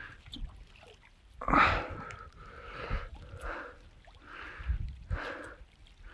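A person breathing and sniffing close to the microphone: a run of soft, noisy puffs about once a second, with a few dull low thumps in between.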